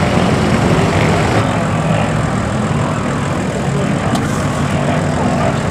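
Engines of off-road 4x4 vehicles running close by, a steady low drone. The sound changes abruptly about a second and a half in.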